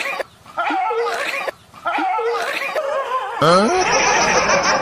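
A dog barking and yelping in short runs of calls with brief pauses between them. About three and a half seconds in, a louder, denser burst of sound begins with a rising cry.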